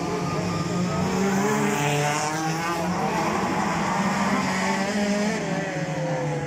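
National Hot Rod race cars lapping an oval, several engines rising and falling in pitch as they accelerate and lift through the bends.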